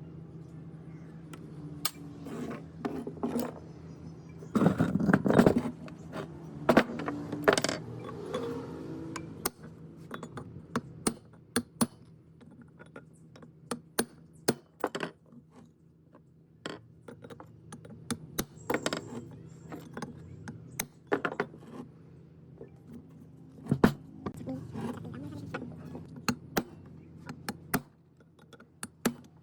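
Small metal parts and tools clinking and scraping on a work surface, with many sharp clicks and a louder scrape about five seconds in. A low steady hum runs underneath and drops away near the end.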